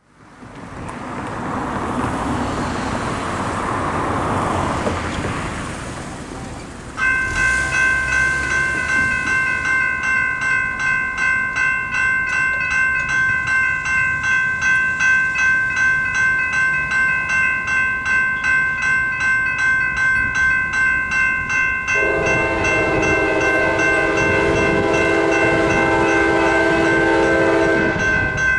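A railroad crossing warning bell starts about seven seconds in, ringing in quick, steady strokes as the signals activate and the gates come down; before it, a rushing noise swells and fades. Over the last several seconds a locomotive air horn joins, sounding long and steady from the approaching Amtrak P42DC.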